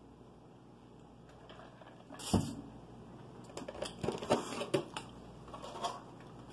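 A single knock as a stainless insulated tumbler is set down on the table a couple of seconds in, followed by the irregular crackling and clicking of a clear plastic clamshell food container being handled.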